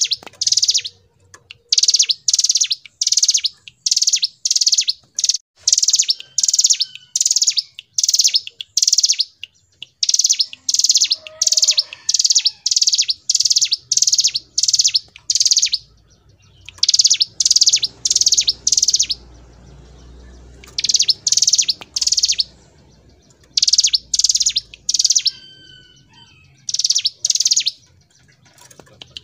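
Ciblek gunung (hill prinia) singing its long, loud 'ngebren' song: rapid runs of sharp, high chipping notes, about two a second, in phrases of several seconds broken by short pauses.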